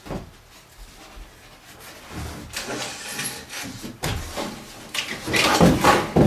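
A sheet of 3/4-inch plywood roof sheathing being slid across wooden rafters, wood scraping and knocking as it is shoved into place; the scraping grows louder near the end.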